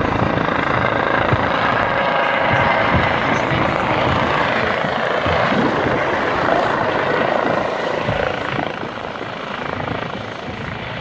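Helicopter hovering low and setting down on snow: a steady, loud rotor and turbine noise that grows quieter over the last few seconds as it settles.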